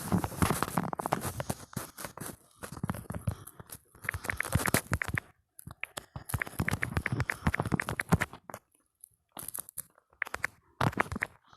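Smartphone on-screen keyboard clicking rapidly as a message is typed, in quick runs of key taps with short pauses between them.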